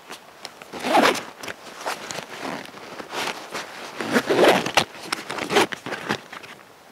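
Fabric and nylon webbing of a Savotta Jääkäri XL rucksack being handled: a series of rustles and zip-like pulls as straps are drawn tight over a rolled item. The loudest pull comes about four and a half seconds in.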